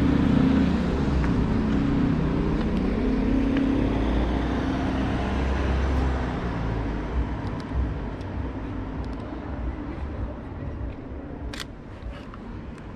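A motor vehicle running close by on the street, a steady low engine rumble that eases off after about six seconds as it moves away. A single sharp click comes near the end.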